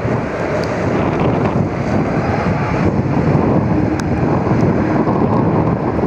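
Wind buffeting the microphone over the steady rumble of an airliner's jet engines as it rolls out on the runway after landing.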